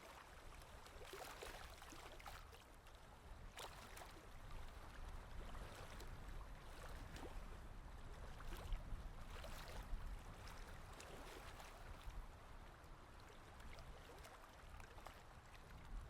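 Faint, irregular scratching and rubbing of oil pastel strokes on paper, with a low rumble underneath.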